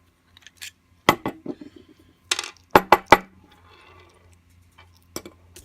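Sharp metal clicks and clinks as an American 5200 padlock and a screwdriver are worked at the screw down the shackle: two taps about a second in, a brief scrape, a quick run of three clinks near the middle and a single click near the end.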